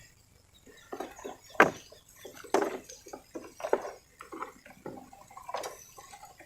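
Irregular wet slaps and squelches, about fifteen short knocks in the space of a few seconds, from a large freshly caught eel being handled and wriggling.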